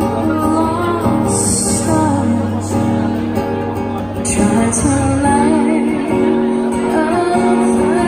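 A woman singing to acoustic guitar accompaniment, her held notes wavering with vibrato.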